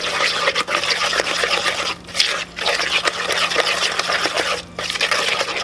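Stirring a wet batter of grated zucchini and the wet ingredients for zucchini bread in a mixing bowl: a continuous scraping swish, broken by a few brief pauses.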